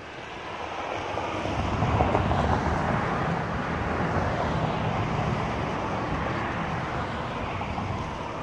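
A vehicle passing by, its rumble swelling over the first two seconds and fading away toward the end.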